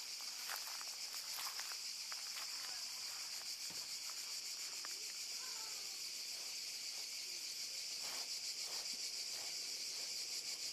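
Steady, high-pitched chorus of insects shrilling without a break, with a few faint taps.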